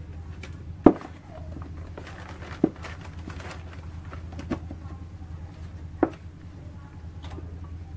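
Four sharp knocks and clacks as cables and tools are moved around a metal coinbox frame, the first and loudest about a second in, with light rustling between them over a steady low hum.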